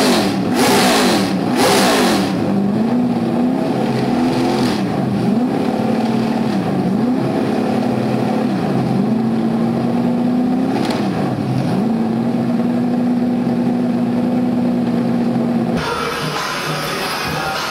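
Performance car engine revved repeatedly, its pitch swinging up and down every second or two, then held at a steady raised speed. About sixteen seconds in it cuts off abruptly to music.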